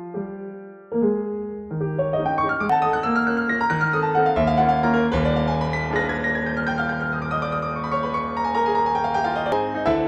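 Background piano music: a few separate notes at first, then fuller overlapping notes from about a second in.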